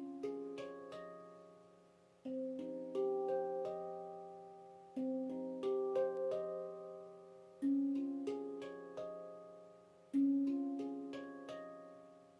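Stainless steel Veritas handpan in F Integral tuning played by hand. A low note is struck about every two and a half seconds, each followed by a quick cluster of higher notes, all ringing on and fading away.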